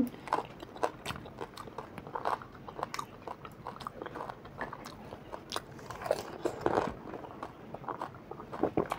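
Pani puri being eaten: crisp, hollow fried puri shells crunching and being chewed, a run of irregular small cracks and clicks.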